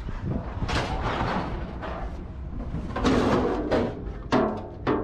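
Pieces of scrap metal scraping and clanking as they are dragged and dropped, with a ringing metallic clang near the end.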